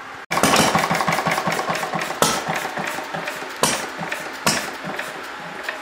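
Single-cylinder Briggs & Stratton engine fitted with a see-through glass cylinder head, running with a rapid, even train of firing knocks. It starts abruptly about a quarter-second in, and a few louder, sharper cracks stand out about two, three and a half, and four and a half seconds in.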